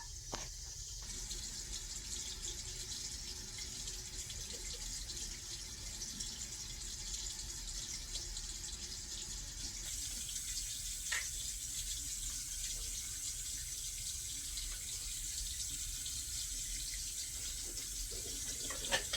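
Water running steadily from a kitchen tap into a sink, with a brief click about eleven seconds in.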